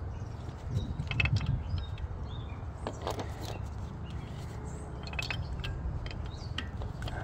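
Light metallic clicks and clinks of parts being handled on the opened top of a Detroit Diesel 60 series cylinder head, a few separate knocks over a steady low rumble.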